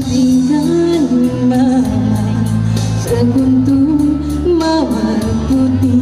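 A woman singing a slow song into a microphone over an amplified backing track, holding long notes that slide between pitches above a steady bass line and light percussion.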